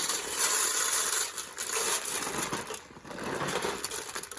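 Bird seed poured from a large 40-pound bag into a tray: a hissing patter of small seeds that eases off about three seconds in, then a few rustles.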